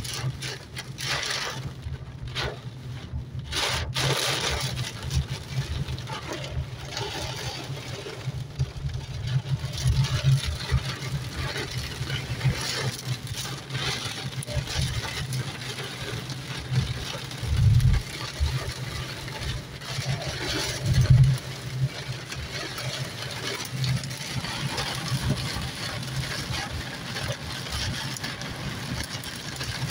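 Inside a car driving through heavy rain: a steady low engine and road hum under the even hiss of rain on the windscreen and bodywork. Two brief louder low rumbles come a few seconds apart, past the middle.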